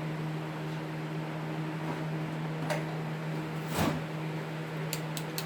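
Steady low hum with a knock about four seconds in and a quick run of sharp clicks near the end: small plastic computer-fan parts and tools being handled.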